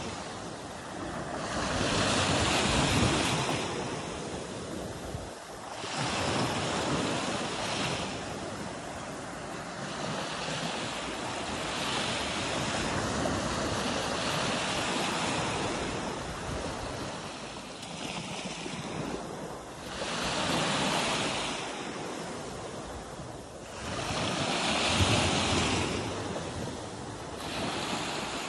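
Small sea waves breaking and washing up a sandy shore, the surf swelling and falling back every few seconds.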